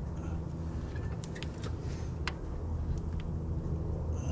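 A few light clicks and taps of hand work under the hood, over a steady low hum.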